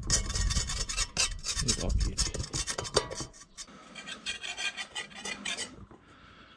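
Rapid scraping strokes on the steel shell of an M42 helmet, working off paint softened by stripper. The strokes are loud for about three seconds, then lighter and fainter, and stop shortly before the end.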